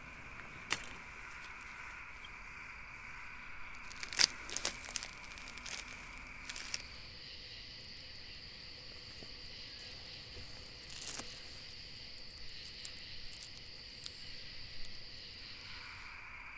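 Steady insect chirring from the surroundings, its pitch shifting about seven seconds in, with scattered sharp snaps and crackles from handling or outdoor work, the loudest a cluster about four seconds in.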